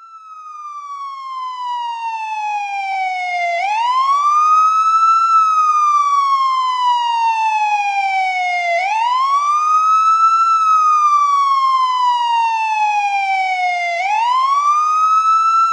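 Police escort car siren in a slow wail: the pitch sinks steadily for about three and a half seconds, then swoops back up within a second or two, three times over. It grows louder over the first few seconds.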